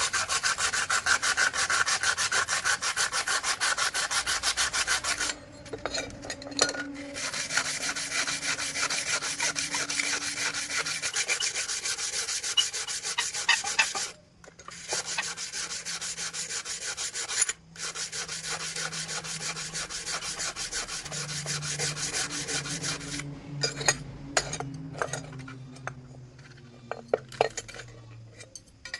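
Steady hand filing: a file scraping back and forth in fast, continuous strokes, with a few short pauses.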